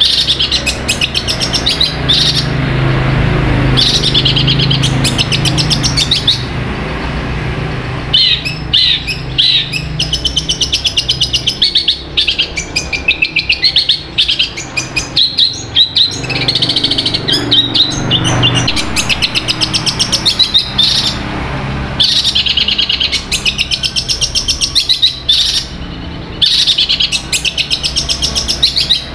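Long-tailed shrike (cendet) singing a long, varied song of fast chattering and trilling phrases, broken by short pauses, in the mimicking style bird keepers prize in a bird that is in full song.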